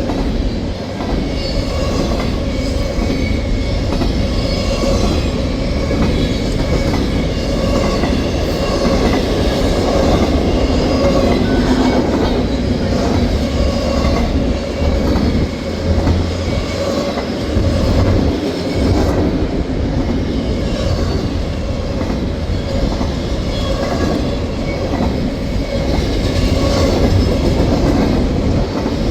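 A train's cars rolling steadily past, with the wheels clicking in an even rhythm over the rail joints.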